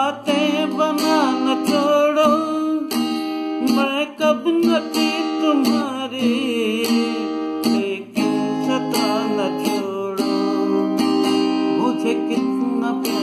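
Acoustic guitar strummed in steady chords while a man sings a Hindi love song with a wavering, ornamented melody over it.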